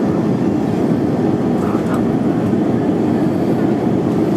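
Steady cabin noise inside an Airbus A320 on final descent: an even rumble of the engines and airflow, deepest in the low range, holding the same level throughout.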